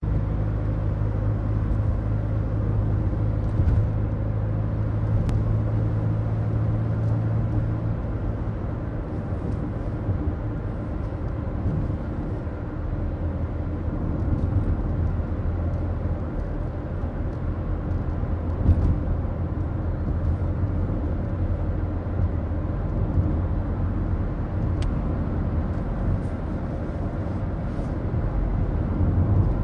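Ford Focus diesel heard from inside the cabin while driving on a straight road: a steady low engine drone under road rumble, with a few faint ticks. The engine note shifts slightly about eight seconds in.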